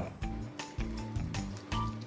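Background music: a light melody of held notes over deep bass notes.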